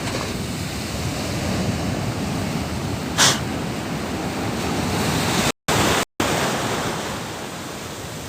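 Ocean surf rushing steadily, with wind noise on the microphone. A short hiss comes about three seconds in, and the sound cuts out completely twice in quick succession after about five and a half seconds.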